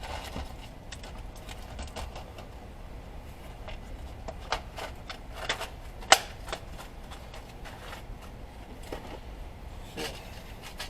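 Small parts of a thread-repair insert kit being handled, with scattered light clicks and rattles and one sharper click about six seconds in.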